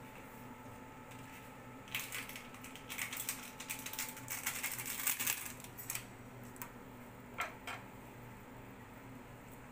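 Crinkling and crackling of a small plastic seasoning sachet being torn and shaken out over a steel pan of noodles: a dense run of crisp clicks from about two seconds in, dying away to a few single crackles near the end.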